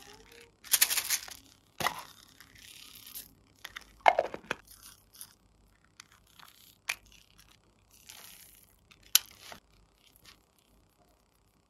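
Small plastic slime containers being opened and handled by hand: lids prised and popped off with crinkly plastic rustles and several sharp clicks.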